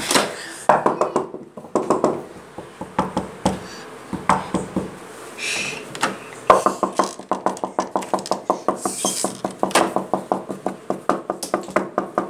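Rapid, even knocking, about five knocks a second, starting about six and a half seconds in and keeping on; before it, scattered handling noises.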